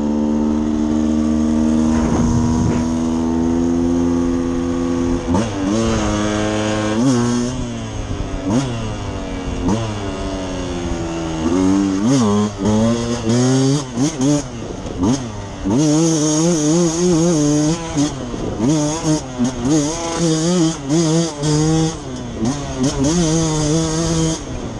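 Two-stroke engine of a Beta 200 RR enduro motorcycle under way. It holds a steady note at first, then climbs and drops in pitch several times. From about halfway on, the throttle is opened and closed in short, repeated bursts as the bike rides a rough dirt track.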